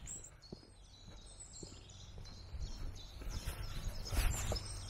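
Small birds chirping and singing in scrubland, over a low rumble of wind on the microphone, with a few scuffing footsteps, the loudest a little before the end.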